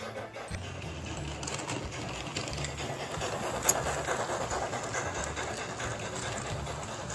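Hornby Black Five OO gauge model steam locomotive with a DCC sound decoder running past close by: the decoder's steam-engine sound over the whirr of its motor and wheels on the rails. It grows louder toward the middle as it passes, with one sharp click.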